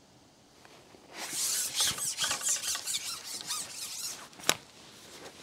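Carbon fishing pole squeaking and rubbing for a few seconds as it is handled with a small skimmer hooked, followed by a single sharp click near the end.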